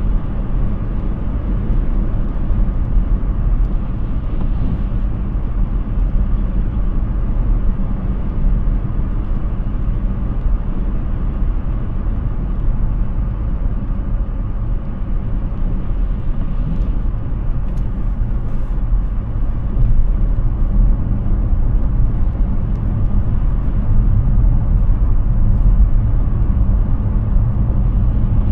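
Steady low tyre and road rumble from a Hyundai Ioniq 6 electric car driving on the road, with no engine note.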